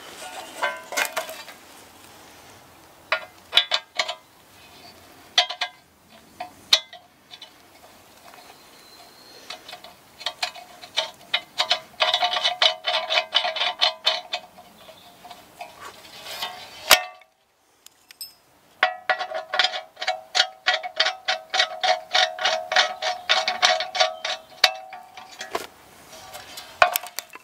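Steel legs being screwed into a cast iron griddle: rapid metal-on-metal clicking and squeaking of the threads, in two long runs with a short break between them, after a few scattered clinks.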